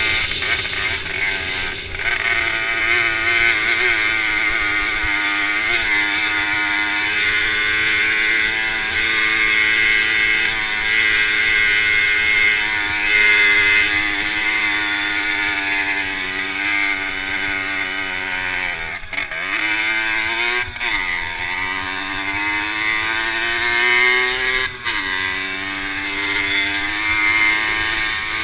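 Small racing moped engine running hard, its pitch rising and falling with throttle and gear changes, with three quick drops in revs and pick-ups in the last third.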